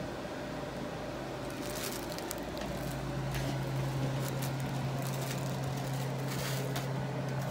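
Clear plastic zip-top bag crinkling in short bursts as it is handled and set down. A steady low hum starts about three seconds in and runs under it.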